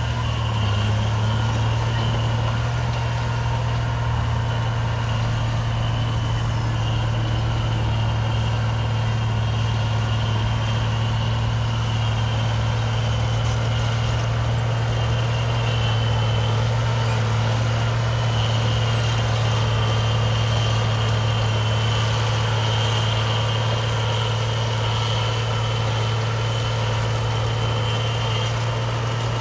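Heavy diesel engine of a dump truck or bulldozer running steadily at a constant speed, a low even hum.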